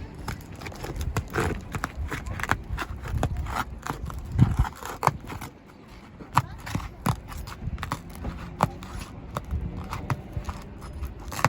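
Roof snake, a flat shingle-unsealing bar, worked under an asphalt shingle to break its adhesive seal strip: irregular scraping with many sharp clicks and knocks, and a few heavier thumps about four to five seconds in.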